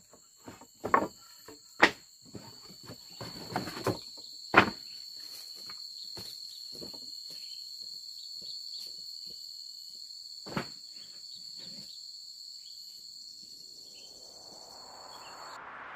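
Insects chirping in one steady, high, unbroken note, with a cluster of sharp knocks and thumps in the first few seconds and one more knock about halfway through. A rising whoosh swells up over the last few seconds.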